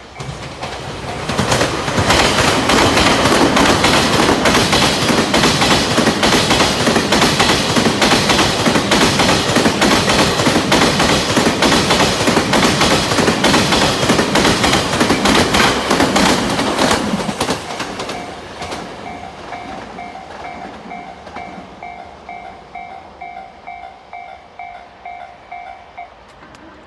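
Level crossing warning bell ringing in a steady two-tone pulse as the M250 series Super Rail Cargo electric freight train rushes through. The train is loud and rushing, with a rapid clatter of wheels over rail joints, for about sixteen seconds. Once it has passed, the crossing bell is heard alone, fading, until it stops near the end.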